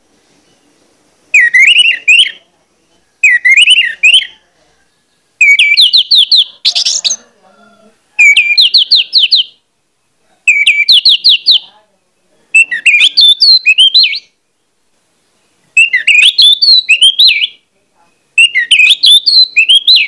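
Orange-headed thrush (anis merah) singing loud, insistent 'ngeplong' song: about nine phrases of quick whistled notes, each about a second long with roughly a second's pause between them, several of them rapid trills.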